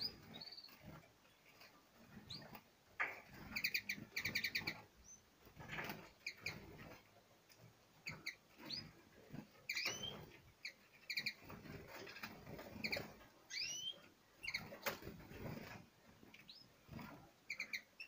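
Small songbirds in an aviary calling: short chirps and rising whistled notes at irregular intervals, with a few quick trilled calls about four seconds in. Light knocks and rustles are heard as the birds move about the cage.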